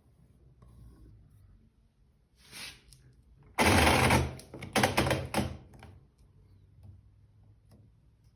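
A short run of loud clicking and clattering from a washer-dryer as it starts its cycle, about three and a half seconds in and lasting about two seconds, over a low hum.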